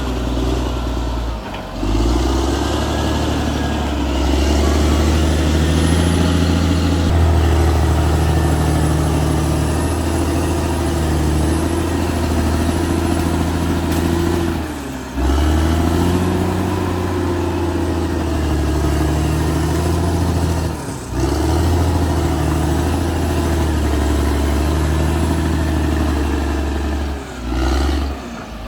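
Caterpillar D6R XL bulldozer's diesel engine running steadily under load, with the low hum of its harmonics and noisy mechanical clatter above, broken by a few short sudden dips.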